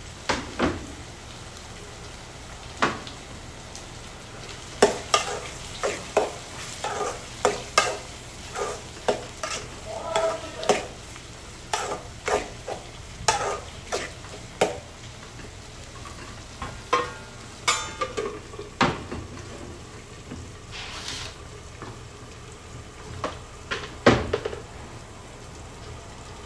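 A metal spoon stirring and scraping in a steel kadai, clicking and knocking against the pan many times, as onions and chopped tomato fry in oil with a steady low sizzle. Near the end comes one heavier clank as the steel lid goes onto the pan.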